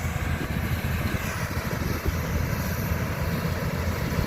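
Engine of a rice-harvesting farm machine running steadily, a low, even engine noise.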